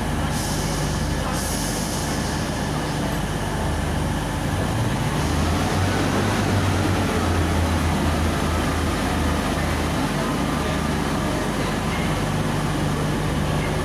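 Class 144 Pacer diesel multiple unit pulling out of a platform, its underfloor diesel engines working harder and louder from about five seconds in. A hiss runs through the first few seconds.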